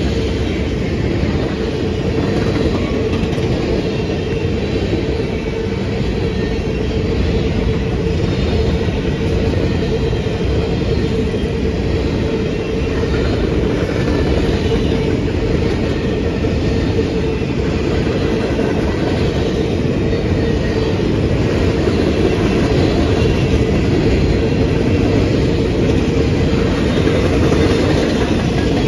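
Freight train cars rolling past close by: the steady noise of steel wheels on rail, with a steady whine running through it.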